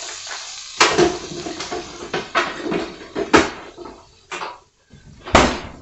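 A utensil knocking and scraping in a nonstick frying pan about six times while the pan is deglazed with chicken broth. The liquid sizzles faintly, fading over the first second or so.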